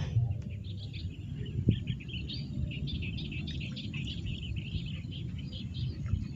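Small birds chirping continuously in the marsh, many short high calls overlapping, over a steady low rumble of wind on the microphone. A single soft knock about a second and a half in.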